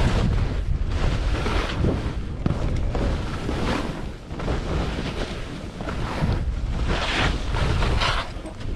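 Wind buffeting the microphone in a steady low rumble while K2 skis swish and hiss through soft fresh snow, one swell of hiss for each turn, roughly once a second, with the strongest swishes near the end.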